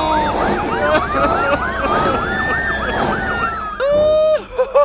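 Police siren sound effect: a fast yelp rising and falling about four times a second over a slower rising and falling wail. Near the end it gives way to a short held, voice-like tone.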